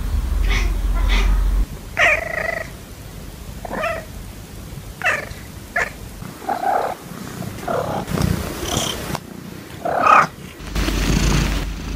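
Domestic cats vocalising: a string of about ten short, separate calls, with purring at the start and again near the end.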